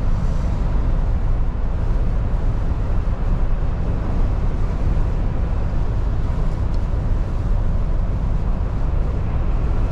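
Steady in-cab noise of a MAN TGX lorry cruising at about 75 km/h on a wet motorway: a deep, even engine and road rumble with tyre hiss on top.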